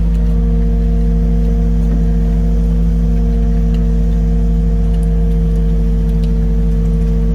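Work barge's engine running at a steady speed, a loud constant drone with a deep rumble underneath.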